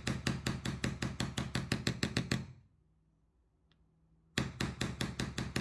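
Small mallet tapping a punch in quick light strikes, about seven a second, driving a roll pin flush into a charging-handle base. Two runs of taps with a pause of about two seconds between them.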